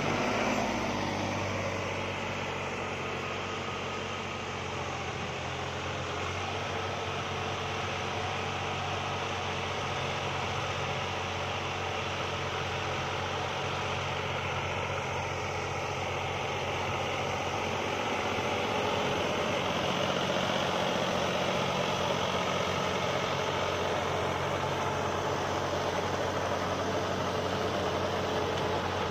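New Holland 6510 tractor's diesel engine running steadily while it drives a super seeder through rice straw, getting a little louder in the second half.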